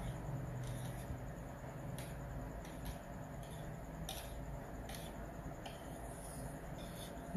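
Small wire whisk beating frothy egg whites in a bowl: faint, irregular clicks and light swishes as the wires tap and scrape against the bowl, a little more than one a second.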